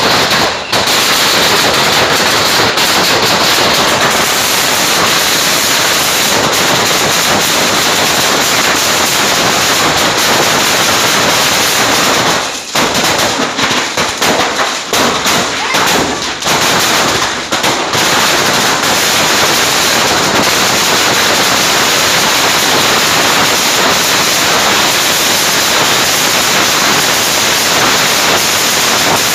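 Large building fire burning close by, a dense continuous crackling and popping, with a few brief breaks in the noise in the middle.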